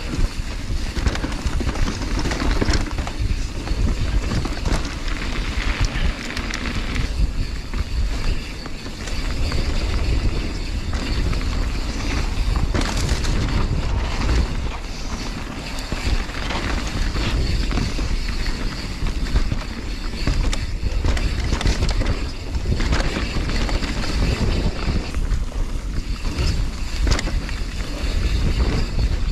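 Mountain bike riding fast downhill over a dirt trail strewn with dry leaves: wind buffeting the microphone, tyres rolling over dirt and leaves, and the bike rattling and knocking over bumps.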